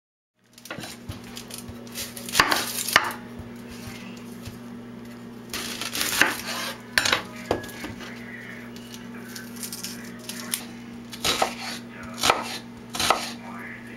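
Kitchen knife cutting onions on a wooden cutting board: sharp knocks of the blade on the board every second or few, some in quick pairs, over a steady low hum.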